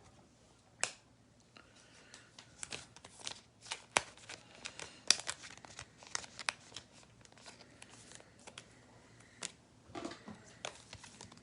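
Trading cards being handled: soft rustling with scattered light clicks and taps, busiest in the middle and again near the end.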